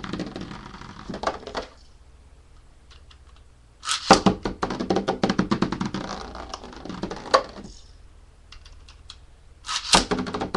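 A Beyblade Capricorn spinning and bouncing in a plastic stadium, rattling in three bursts of fast clicking with quieter spells between. The rattle is its bounce mode working after an angled launch.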